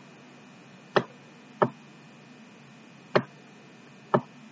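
Four sharp, irregularly spaced clicks from the input device used to handwrite on a digital whiteboard, over a faint steady electrical hum with a thin high whine.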